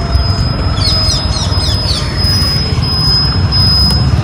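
Wind buffeting the microphone and road and engine noise of a moving scooter, a dense low rumble throughout. About a second in, a quick run of high, falling squeaks is heard over it.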